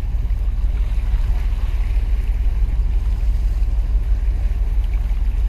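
Wind buffeting the microphone as a steady low rumble, over a faint wash of harbour water.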